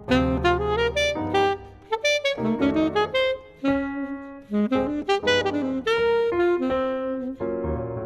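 Alto saxophone playing a quick jazz melody line, accompanied by piano chords, in a saxophone and piano duet.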